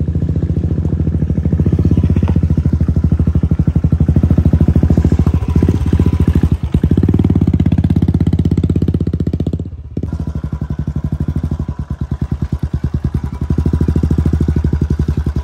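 Motorcycle engine running at low speed close by, with an even, rapid thump from the exhaust. The sound breaks off briefly about ten seconds in, then carries on.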